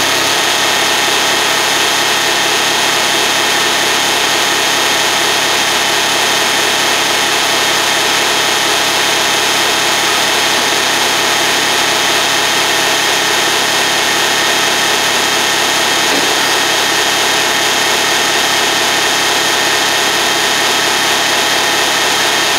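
Kubota RTV-X1100C's three-cylinder diesel engine idling steadily at the exhaust, still warming up after a cold start.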